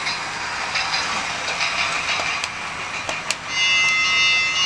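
Adventure Force Adventure Railway toy train running on its track, a steady hiss with small clicks. About three and a half seconds in, its electronic bell sound effect starts, a steady high ringing held for about two seconds.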